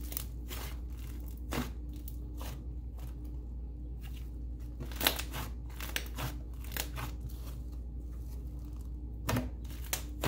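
Soft, puffy clay slime squeezed and kneaded between two hands, giving irregular small pops and crackles, with a few louder pops about five seconds in and near the end.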